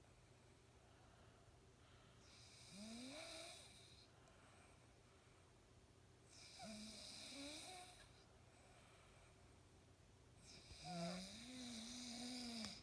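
A man snoring in his sleep: three snores about four seconds apart, each a rasping breath with a rising pitched drone, the last one longest.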